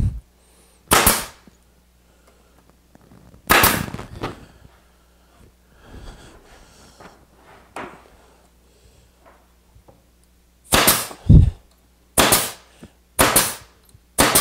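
Grex 18-gauge pneumatic brad nailer firing brads into plywood: a series of sharp shots, two in the first few seconds, then a quick run of about one a second near the end.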